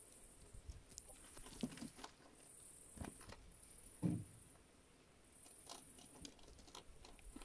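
Rabbits eating vegetables, faint scattered nibbling and crunching clicks, with one louder thump about four seconds in.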